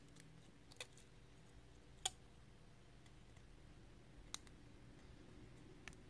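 A few short clicks over near silence, from a stainless steel shim and key being worked in and out of a lock cylinder to free the pins at the shear point. There are four clicks at uneven gaps, the loudest about two seconds in.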